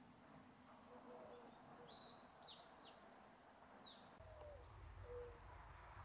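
Faint, quick, high falling chirps of a goldfinch about two seconds in. Later comes a soft low coo note from a mourning dove.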